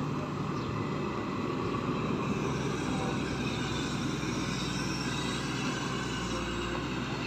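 Matador Shantui crawler excavator's diesel engine running steadily under load while the machine digs and swings in mud, with a deeper hum coming up about six seconds in.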